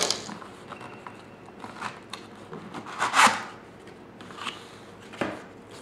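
Cardboard box being opened by hand, its flaps rubbing and scraping: scattered rustles with one louder scraping swish about three seconds in.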